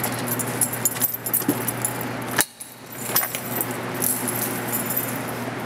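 Jingling and small clicks from handling as the camera is carried along the truck, over a steady low hum. The sound drops out briefly about two and a half seconds in.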